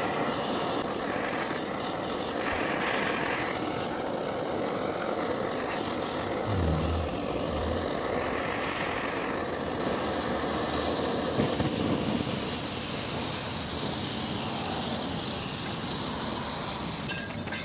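Handheld propane blowtorch hissing steadily as it heats the steel sleeve of a rubber suspension bushing, melting the rubber until it catches fire so the bushing can be knocked out.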